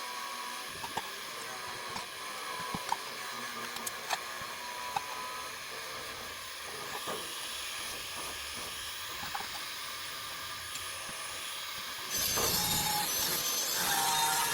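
Steady hiss with scattered small clicks and crackles. About twelve seconds in, a louder power tool with a steady whine starts and runs.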